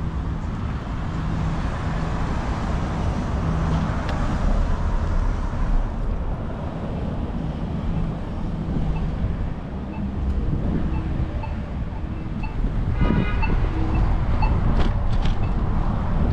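Road traffic noise with wind rumbling on the microphone while riding a bicycle, and a short pitched sound about 13 seconds in.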